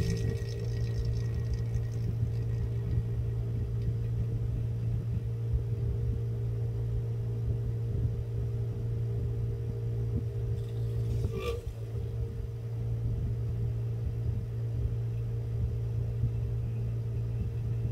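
Small electric suction pump running steadily with a constant hum, drawing cleaning water out of an inkjet printhead's chamber. A short click about two-thirds of the way through.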